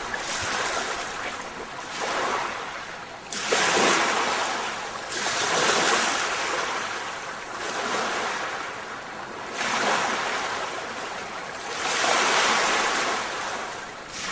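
Ocean surf: waves rushing in, the noise swelling and fading every two to three seconds.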